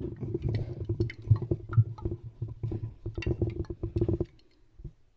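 Handling noise: irregular knocks, taps and rustles as a drink bottle and the recording phone are moved about, over a steady low hum, stopping about four seconds in.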